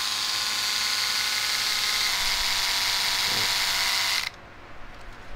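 Multi-head electric shaver running with a steady high buzz, its tone changing slightly about two seconds in, then switched off abruptly near the end.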